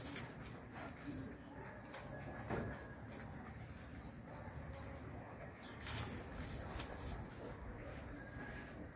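Chicken pecking at a chayote fruit on the ground, soft taps of its beak on the fruit. Short high chirps repeat about once a second throughout.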